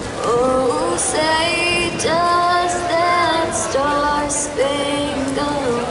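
An 11-year-old girl singing a song, holding each note for about a second and stepping between pitches from phrase to phrase.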